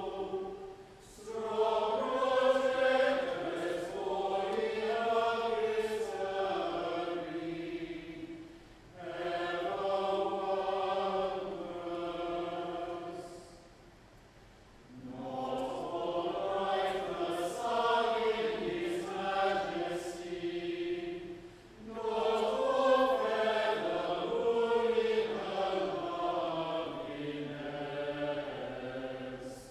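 Unaccompanied plainchant, sung in long phrases with short breaks between them, the longest about halfway through.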